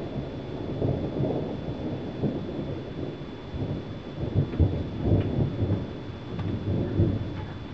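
Thunder rumbling in a low, rolling roar that swells and eases several times and tails off near the end.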